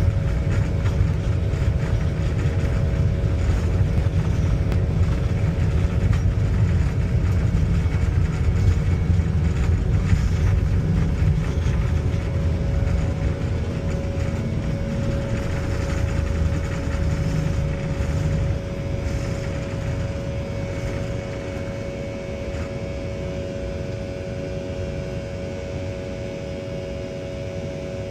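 Jet airliner engines at takeoff power heard inside the passenger cabin: a heavy low rumble with steady engine drone tones, slowly easing in loudness over the stretch.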